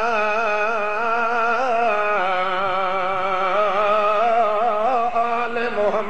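A man chanting one long drawn-out note in an Arabic devotional recitation, the pitch wavering and rippling in ornaments throughout, over a steady low tone.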